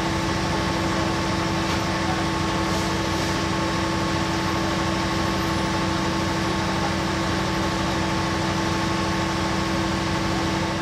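Diesel engine of a standing passenger train idling: a loud, steady drone holding several constant tones, unchanged throughout.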